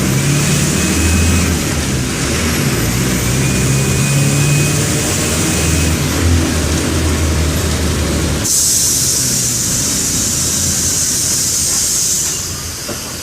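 Mercedes-Benz OM 904 LA four-cylinder turbodiesel of an OF-1418 bus running under load, with brief dips in the revs about two and six seconds in. About eight seconds in the engine drops back and a loud hiss of compressed air follows for about four seconds.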